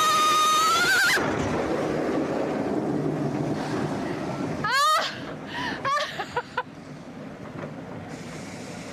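A log-flume rider's long, high scream on the drop cuts off about a second in as the boat hits the pool, followed by a splash and a rush of water that fades over the next few seconds. A short rising shriek and bursts of laughter come around five to six seconds in.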